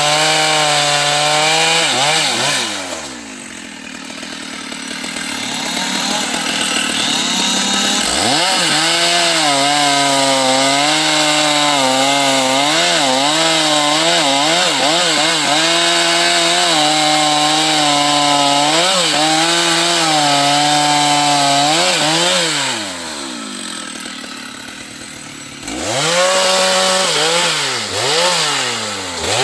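Two-stroke Stihl chainsaw cutting wood at full throttle, its pitch dipping and recovering as the chain bites. It drops to idle twice, about three seconds in and again after about twenty-two seconds, and revs back up into the cut each time.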